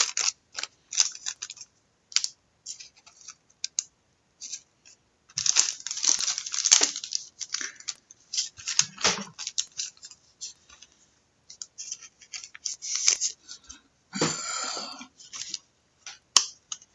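Intermittent rustling, crinkling and light clicking of trading cards and their packaging being handled, in short irregular bursts.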